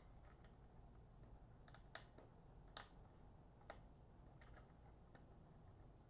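About half a dozen faint, scattered clicks and ticks of a small screw and screwdriver against a power supply's sheet-metal case as a ground-cable screw is fitted; otherwise near silence.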